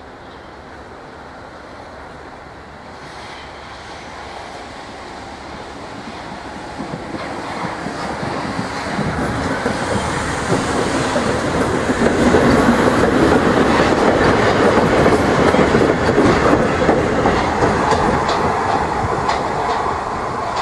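Historic Hamburg U-Bahn TU train approaching and running past, growing steadily louder and loudest about two-thirds of the way in. Its wheels clatter over the rail joints as the cars pass.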